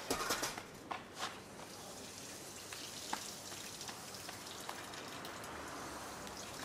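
Footsteps scuffing on sandy ground a few times in the first second or so, with one more tap about three seconds in, over a steady outdoor hiss.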